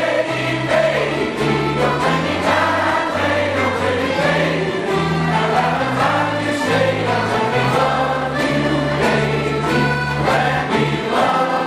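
A large group of voices singing together, choir-like, over an instrumental accompaniment of held bass notes that change every second or so.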